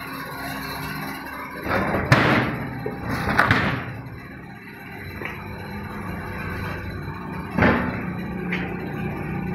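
Metal knocks and clatter from a freestanding stainless-steel gas cooker being handled: a sharp knock about two seconds in, a longer clattering rattle just after, and another knock near the end, over a steady low hum.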